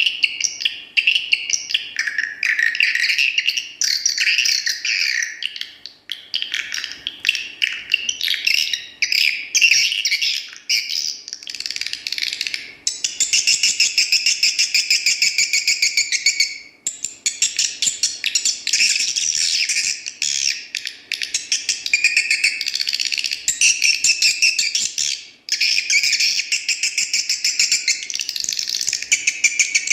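Recorded swiftlet calls, edited into a mono lure-call track (suara panggil) for a swiftlet house, playing back: dense, rapid high chirps and twittering trills. The calls drop out briefly three times.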